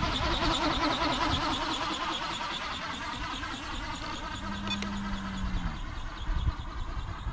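Radio-controlled condor ornithopter's flapping drive whining in flight, with a quick regular pulse. It is loudest as the model passes close, then eases off as it flies away.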